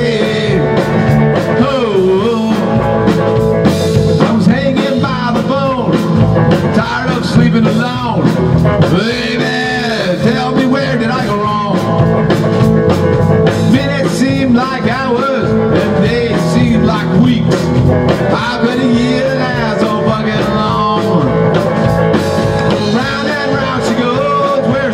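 Live rock-and-roll band playing loud: two electric guitars and a drum kit.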